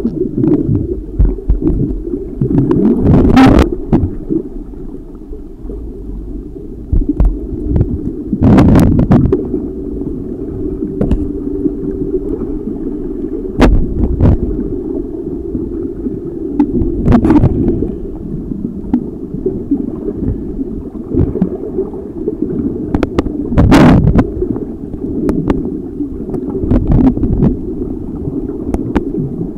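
Muffled rumbling water noise on a submerged camera, dull and without treble, broken by several sharp splashing or bubbling bursts.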